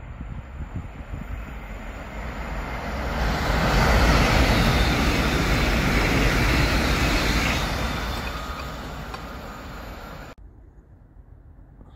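Passenger train passing at speed on the far track. The wheel and rail noise swells over a few seconds, holds loud for about four seconds, then fades, and cuts off suddenly near the end.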